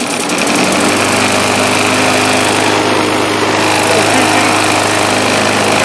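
Bolens mulch mower's Briggs & Stratton engine freshly started, picking up speed and settling to a steady run about a second in. It is running again after a carburetor clean-out let the primer draw fuel, though the owner thinks it has a bad vibration from a bent shaft.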